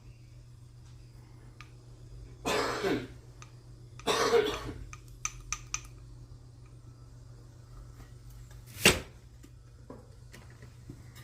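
A person coughs twice, a few seconds in, then there are three quick clicks and, near the end, one sharp knock, the loudest sound. A steady low hum runs underneath.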